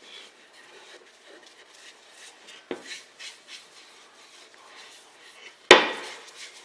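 Rubbing and handling noises with two sharp knocks, one about three seconds in and a much louder one near the end.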